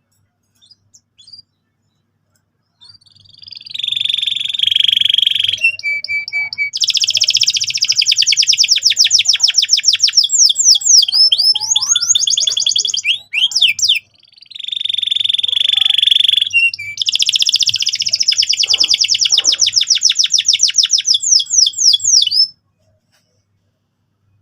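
Male canary singing vigorously in two long, high-pitched song phrases of very fast trills and rolls, separated by a brief break, stopping suddenly near the end. It is the kind of continuous, full 'gacor' song played as a lure to bring a female canary into breeding condition.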